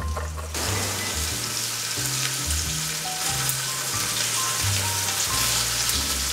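Flour-dredged beef short ribs searing in olive oil in a Dutch oven: a steady sizzle that sets in about half a second in. A background-music bass line steps along under it.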